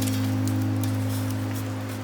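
Background music: a held low chord fading out, over scattered light crackles.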